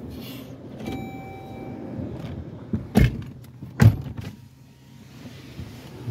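Car interior while driving: a steady low engine and road rumble, with a brief steady high tone about a second in and two sharp knocks, about three and four seconds in.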